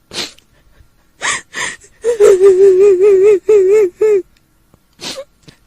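A woman's high, quavering wail in short held phrases with a wobbling pitch, broken by sharp gasping in-breaths before and after: the crying of a kuntilanak, the Indonesian female ghost.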